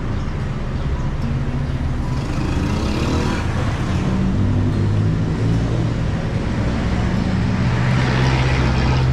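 Street traffic: motor vehicle engines running and passing, with one vehicle going by about three seconds in and another near the end.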